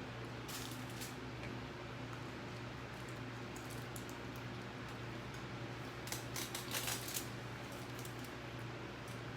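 Small clicks and crisp crackles of food being eaten and handled at the table, with a denser cluster about six to seven seconds in, over a steady low hum.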